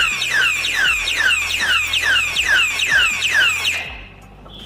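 Motion-sensor alarm padlock's siren sounding as a loud, rapid run of falling sweeps, about two and a half a second, then cutting off suddenly near the end as the lock is unlocked with its key.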